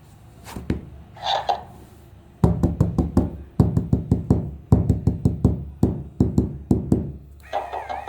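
Battery-powered electric toy rattling in rapid clusters of loud knocks for about five seconds. Near the end it switches to a wavering electronic tone, like a toy siren or tune.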